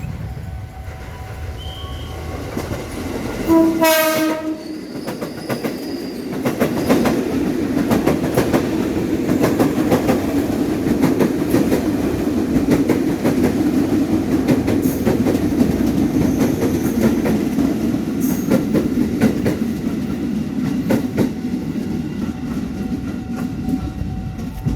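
A train sounds one short horn blast of about a second, a single steady note, then passes close by for about twenty seconds: a steady rumble of the cars with the rapid clickety-clack of wheels over rail joints, fading at the end.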